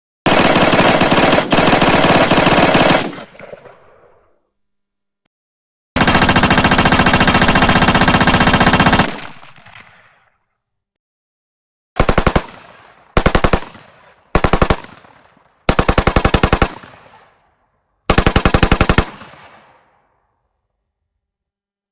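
Machine gun fire in rapid automatic bursts: two long bursts of about three seconds each, then five short bursts, each with a short echo tail.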